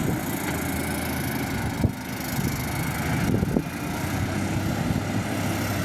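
Heavy earthmoving machine's diesel engine running steadily, with two sharp knocks, about two seconds and three and a half seconds in.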